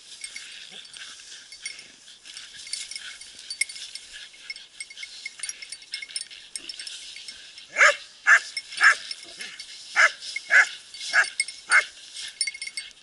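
Small hunting dogs barking in a run of sharp, high yaps about half a second apart over a freshly shot wild boar, starting about halfway through. A steady high hiss, like rustling or wind, lies underneath.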